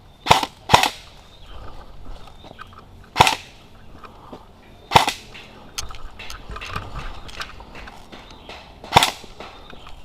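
Airsoft AR-15/M4 rifle firing single shots: five sharp cracks, two in quick succession at the start, then others spaced a few seconds apart, with fainter clicks in between.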